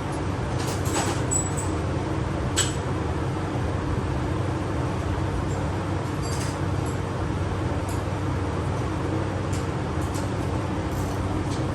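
Steady low mechanical drone, like an idling engine, with a few sharp metallic clinks from socket and wrench work on a bolt, the clearest about two and a half seconds in.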